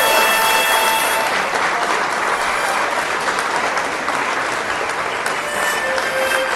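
Audience applauding steadily. A few faint held musical notes sound through the clapping, and the music begins to come in near the end.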